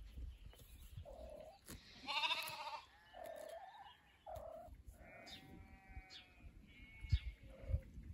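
A sheep bleating several times in short calls, the loudest a wavering bleat about two seconds in, followed by a longer, steadier call.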